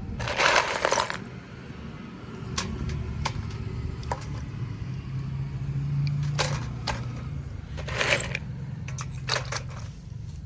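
Baked clay kulhad cups being broken, a few crisp crunchy cracks and crackles with scattered small clicks between them, over a steady low hum.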